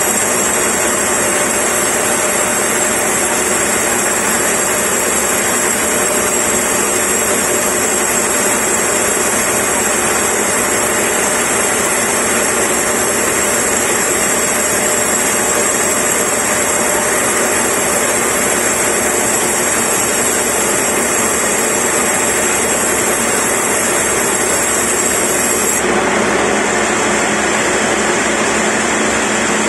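Band sawmill blade running through a large timber, giving a loud, steady saw noise with a high whine over it. The whine drops out and the sound changes about 26 seconds in.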